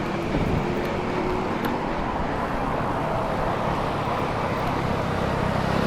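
Steady road traffic noise: cars running on a busy city road, with no single vehicle standing out.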